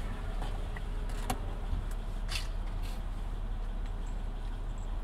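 Car engine idling, heard as a steady low rumble from inside the cabin, with a faint click about a second in and a short hiss a little later.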